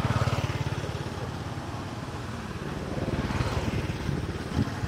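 A motor vehicle engine running with a rapid, even pulse, louder at the start and swelling again about three seconds in.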